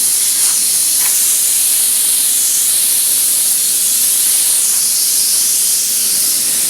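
Compressed-air blow gun hissing steadily as it blows sawdust off a table saw.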